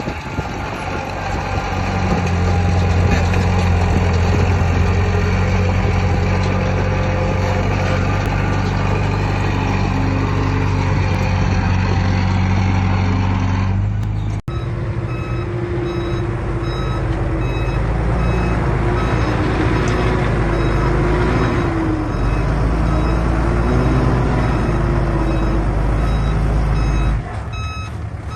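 Diesel engines of heavy earthmoving machines, a bulldozer and dump trucks, running hard. After a cut about halfway through, a reversing alarm beeps at an even pace, about once a second, over the engine.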